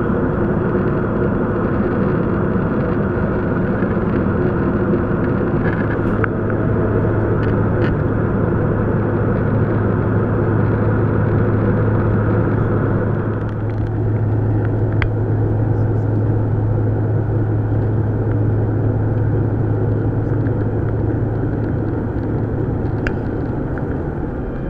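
Steady in-flight cabin noise of a Bombardier CRJ700, with its rear-mounted General Electric CF34 turbofans droning over a low constant hum and rushing air. Partway through, the higher rushing part drops and the sound turns duller. A few faint clicks are heard.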